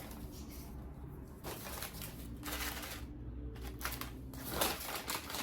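Rustling and handling of takeout food packaging, with scattered light clicks and knocks.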